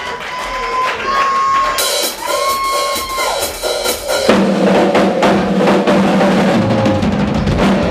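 Rock drum kit (ddrum) played hard in a live drum solo, bass drum, snare and cymbals struck in quick succession. About four seconds in a sustained low note joins the drums and the sound grows fuller.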